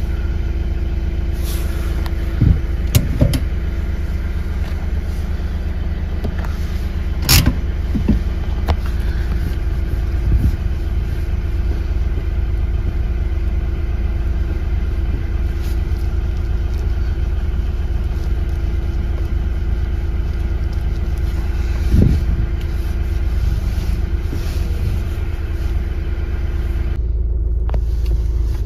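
Hyundai i30 running on the move, a steady low rumble of engine and road, with a few short thumps. The steering knock on bumps is gone after the worn rubber insert in the steering was replaced with a new one.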